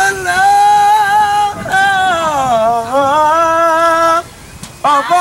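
A man singing long, wordless held notes in a high voice. The first note is held steady; the second dips in pitch and climbs back up. After a short lull, a brief note comes near the end.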